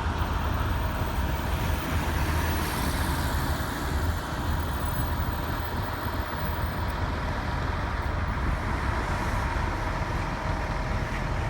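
Steady street traffic noise: cars and trucks going by with a constant low rumble and a faint steady hum.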